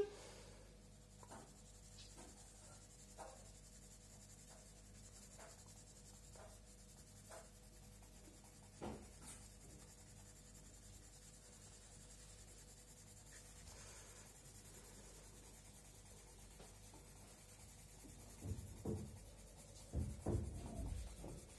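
Coloured pencil scratching back and forth on paper, shading a shape in orange. It is faint for most of the time, with a few light taps, and the strokes grow louder near the end.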